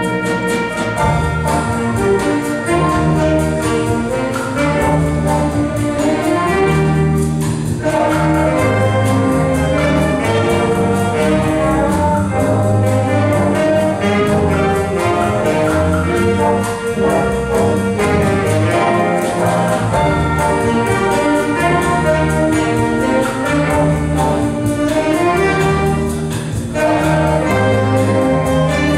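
A band with prominent brass, trumpets and trombones, playing a piece in held chords that change every second or so.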